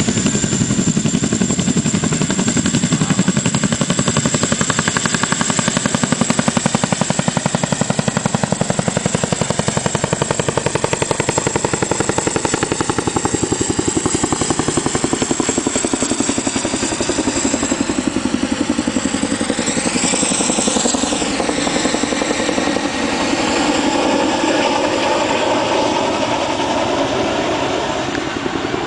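CH-47 Chinook tandem-rotor helicopter lifting off and climbing away: a loud, rapid rotor beat with a steady high whine above it. The pitch sweeps partway through, and the sound fades a little near the end as it gains height.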